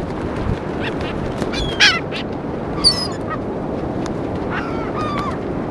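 Gulls calling in short squawks, several birds, the loudest calls about two and three seconds in, over a steady rushing background noise.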